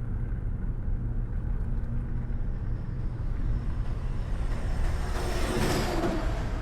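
A car driving along a road: steady low engine and road rumble, with a rushing swell of noise that builds about five seconds in and fades near the end.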